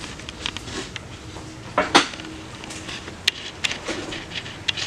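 Scattered light clicks and knocks in a small room, the loudest a sharp knock about two seconds in.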